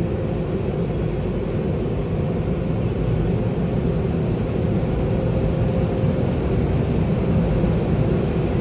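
Steady low rumble of a car heard from inside its cabin as it idles and creeps forward, with a faint steady hum over it. It grows a little louder about three seconds in.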